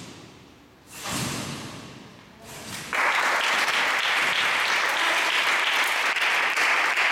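A trampoline bed takes a gymnast's landing about a second in. Then, about three seconds in, applause breaks out suddenly and carries on steadily.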